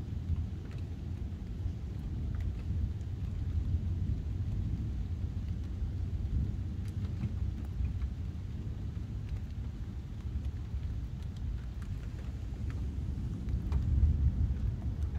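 Thunder rumbling low and drawn out, swelling about four seconds in and again near the end, with faint scattered ticks of rain.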